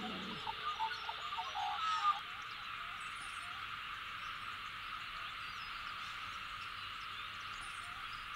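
Ambience of a steady chorus of calling animals, an even drone throughout. A string of short separate calls sits over it in the first two seconds or so.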